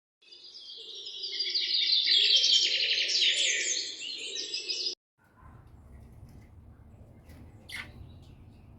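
A dense chorus of many birds chirping and singing at once, swelling in and then cutting off abruptly about five seconds in. After the cut, a faint low background hum with a single short bird call near the end.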